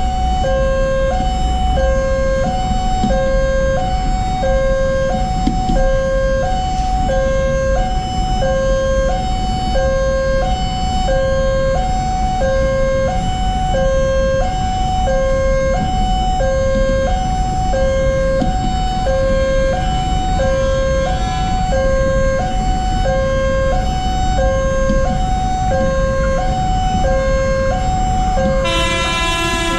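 Railway level-crossing warning signal: an electronic two-tone chime alternating steadily between a high and a low note, over a low rumble. Near the end an approaching electric commuter train (KRL) sounds its horn.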